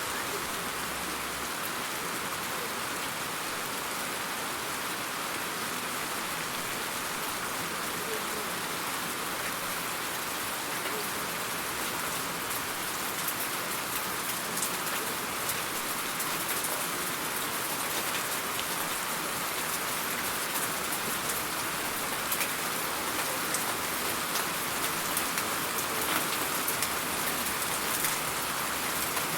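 Steady rain falling, with sharp individual drop hits becoming more frequent from about halfway through.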